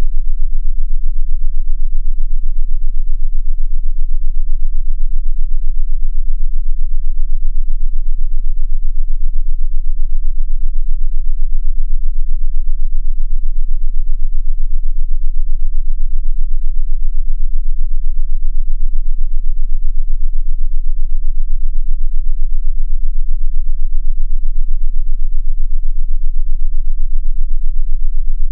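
A loud, steady, very deep synthesized tone: an unchanging low drone with a faint hum above it, played as a 'mental concentration' frequency.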